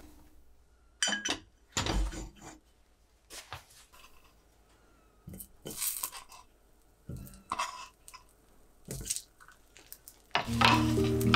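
Kitchen clatter: a few scattered knocks and clinks of a small cast-iron skillet and utensils on a gas stovetop as pieces of butter are tipped from a wooden board into the pan. Background music comes in near the end.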